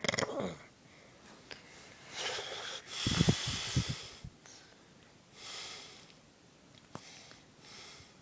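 A man snoring in his sleep: a loud snoring breath with a low rattle about two to four seconds in, then quieter breaths every couple of seconds.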